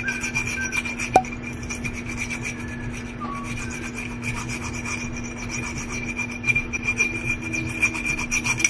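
Wet metal nail file rasping back and forth over the chipped rim of a drinking glass in rapid, continuous strokes, grinding the sharp edge smooth. A single sharp click about a second in.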